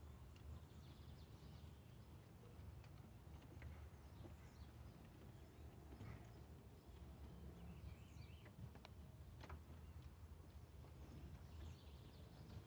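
Near silence: a low background rumble with a few faint clicks and short faint chirps scattered through it.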